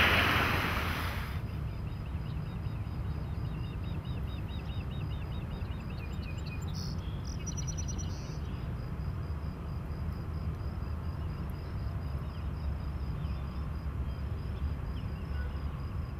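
Steady low outdoor rumble of wind and surf on an open beach, with a louder rush of noise that fades in the first second or so. Faint, repeated high bird chirps run underneath through the middle.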